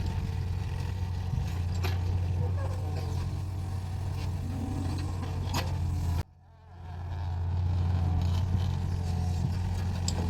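Mini excavator engine running steadily, with a few sharp metallic knocks from the machine working. About six seconds in the sound cuts out abruptly, then fades back in over about a second.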